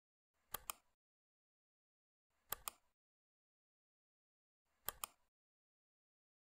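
Computer mouse clicking three times, about two seconds apart, each click a pair of quick sharp ticks.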